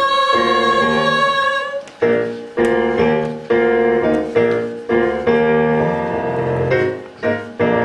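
Singers hold the last note of the phrase on "farm", then a piano plays an instrumental interlude of struck chords, each one ringing and fading before the next.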